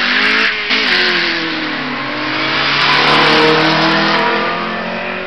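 Street-race cars accelerating hard, engine pitch climbing, dipping at a gear change under a second in, then climbing again. It grows louder, loudest about three seconds in, over heavy exhaust noise.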